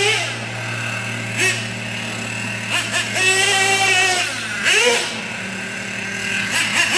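Small nitro engine of a 1/8-scale RC short-course truck running high-pitched, its revs rising and falling repeatedly as the throttle is worked around the track.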